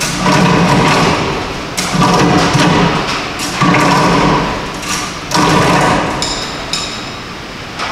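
Chain fall hoist being hauled hand over hand to lift a heavy load: the chain rattles through the hoist in four runs, one about every two seconds, each starting suddenly and dying away.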